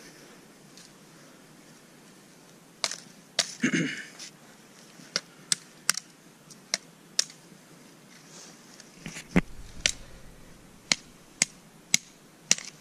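Machete blade chopping a wooden stick, trimming limbs off it: about a dozen sharp whacks at irregular gaps of half a second to a second, with a brief rustle of twigs about four seconds in.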